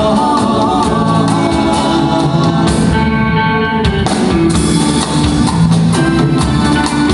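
Live band playing a Sri Lankan classic pop song through a PA: electric guitar, keyboards and drums, with a man singing into the microphone at first, then the band playing on without the voice.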